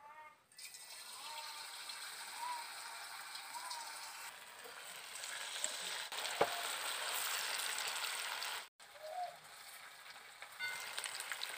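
Battered cauliflower pakoras frying in hot oil in a wok: a steady sizzle as pieces are dropped in, louder in the second half, breaking off for a moment and coming back weaker near the end. One sharp click about six seconds in.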